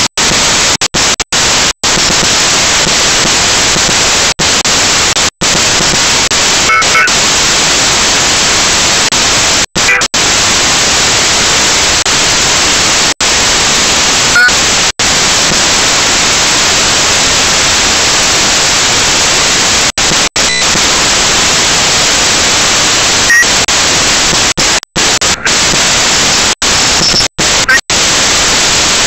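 Loud, steady static hiss, like white noise, from a cheap mini camera's own audio recording. It is repeatedly cut by brief dropouts to dead silence.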